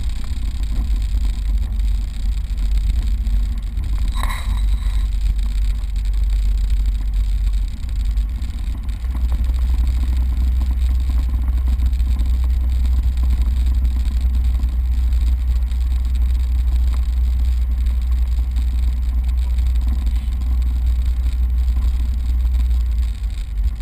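Piper Saratoga's six-cylinder piston engine and propeller running at low taxi power, heard inside the cabin as a steady low drone that grows a little stronger about nine seconds in. A brief high-pitched tone sounds about four seconds in.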